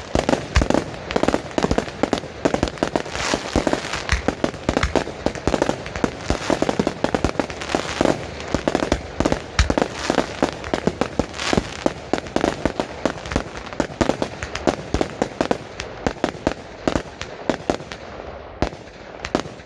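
Fireworks display with mortar-fired shells: a dense, rapid barrage of bangs and crackling, thinning to scattered separate bangs near the end.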